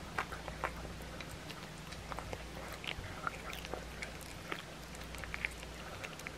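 A cat chewing a raw chicken back, with irregular sharp crunches as her teeth break the bone.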